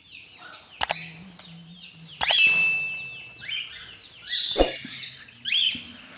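Cockatiels chirping and calling in a flock, with one long steady whistle about two seconds in, and a few loud flurries of wing flapping. A faint low hum runs underneath.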